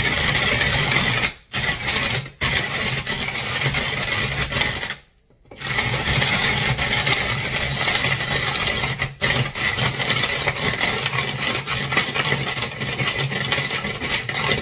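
Coffee beans being ground in a hand-cranked Tupperware Master System grater attachment: a steady grinding, with a few short breaks in the cranking, the longest about five seconds in.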